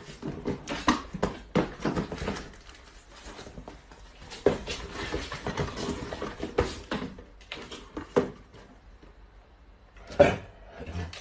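Small cardboard boxes being handled and set down, giving irregular knocks and rustles, with a few louder thumps spread through.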